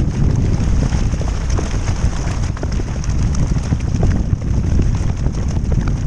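Wind buffeting a deck-mounted camera microphone on a racing kayak under way, a steady low rumble, with water rushing past the hull and scattered splashes and drips from the paddle strokes.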